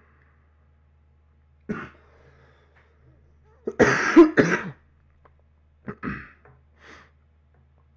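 A man coughing from illness: a short cough, then a harder fit of coughs about four seconds in, then a few smaller coughs and throat clearing.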